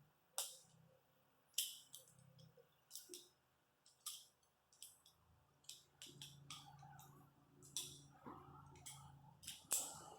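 Light metallic clicks and clinks, scattered irregularly, as the hooks of a spring tool are worked onto the mono spring of a Chevy Cavalier's drum brake shoes.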